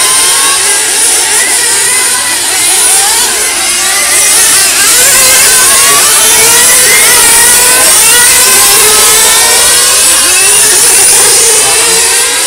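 Several 1/8-scale nitro RC GT cars racing, their small two-stroke glow engines whining loudly and overlapping, each pitch sliding up and down as the cars accelerate and brake through the corners.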